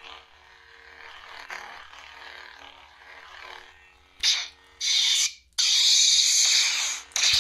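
Lightsaber sound font playing through a custom Proffie v2 saber's 22 mm Nano Elite speaker. A faint steady hum comes first, then about four seconds in two short loud bursts of noise, followed by a longer loud hiss.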